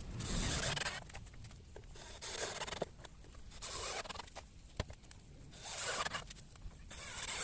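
Scraping, rubbing and clicking as a 12-inch speaker is fitted and fastened into a wooden subwoofer box. There are several short bursts of scratchy noise with scattered clicks between them.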